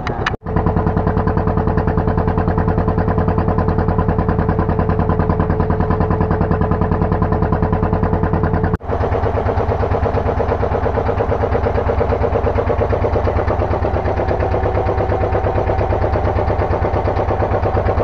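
Fishing boat's inboard engine running steadily with a fast, even chugging beat. It drops out for a moment twice, about half a second in and near the middle.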